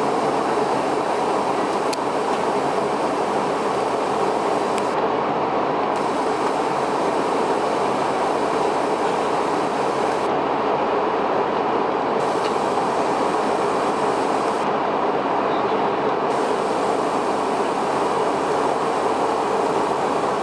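Steady in-flight cabin noise of a Boeing 717 jetliner: an even, unbroken rush.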